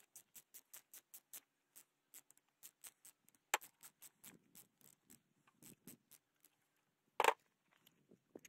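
Quick run of small metal clicks, about five a second, as a homemade wire tension tool is turned to tighten a stainless-wire clamp around a hose on a brass gas fitting, then scattered clicks with handling rustle and one louder sharp click about seven seconds in.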